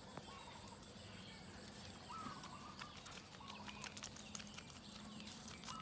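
Quiet yard sounds: a few faint, short bird calls and light pattering steps on dirt, the soft ticks coming more often from about halfway on.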